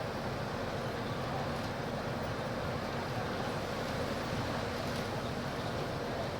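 Diesel engine of a Volkswagen 17.230 EOD city bus running steadily at high revs, a constant drone with no change in pitch.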